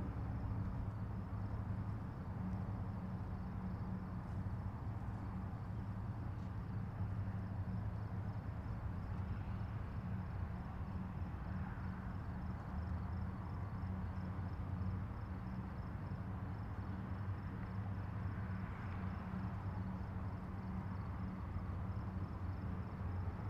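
Steady low drone of marine diesel engines, with a faint, high, rapidly pulsing chirr above it.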